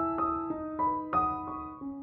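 Background piano music: a melody of single struck notes, about three a second, each ringing and fading into the next.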